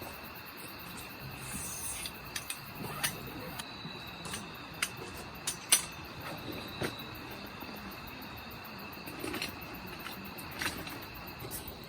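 Scattered light clicks and knocks at irregular intervals, over a faint steady chirring of autumn insects.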